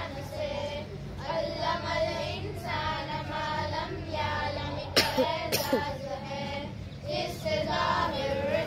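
A group of children singing together in phrases with short breaks between them. A sharp knock cuts in about five seconds in.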